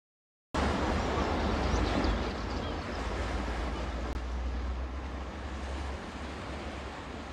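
Wind buffeting a phone's microphone outdoors: a steady rumbling hiss that starts after a brief silence about half a second in.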